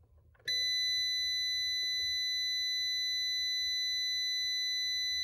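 Ram ProMaster instrument-cluster warning chime: one steady high-pitched tone that starts about half a second in and holds level. It sounds with the dash's 'required' service message, the oil-change-due reminder.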